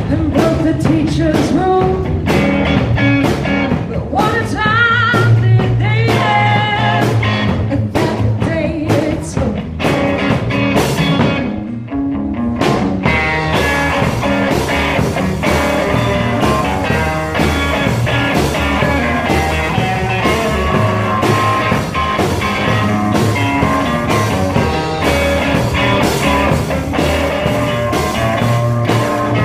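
Live band playing a rock-and-roll number: upright double bass, guitar and a singer, with a steady beat.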